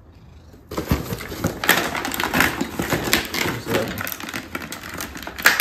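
Tools and a hard plastic blister pack holding a lug wrench set being handled: a dense run of clicks, clatter and plastic crackling that starts about a second in, with a sharper clack near the end.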